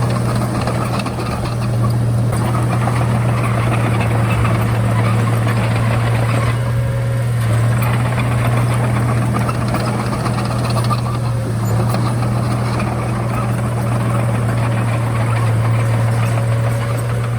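Komatsu D31A bulldozer's diesel engine running steadily with a deep, even hum, the higher clatter thinning briefly about seven seconds in.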